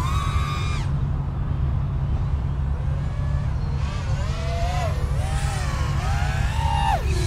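The BetaFPV TWIG Mutant 4-inch FPV quadcopter's brushless motors and props whining while it flies hard on a 4S battery. The pitch swoops up and down sharply with the throttle, dropping steeply near the end, over a steady low rumble.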